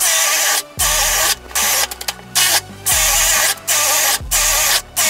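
Bosch GSB 185-LI 18 V cordless drill boring holes in wood with a 5/8-inch spade bit, in short bursts one after another: about eight runs of the motor with cutting noise, each about half a second long, with brief pauses between.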